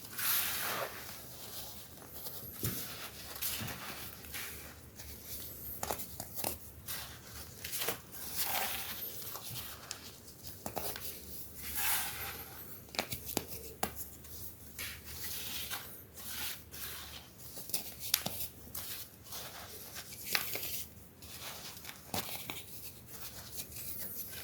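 Pressed baking soda shapes being crushed and crumbled, a continual run of irregular crunches and crackles with soft gritty swishes between them.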